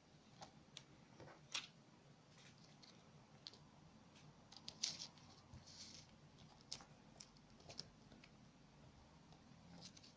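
Faint handling noise: scattered small clicks and light rustles, with sharper clicks about a second and a half in and near five seconds. No buzzer tone.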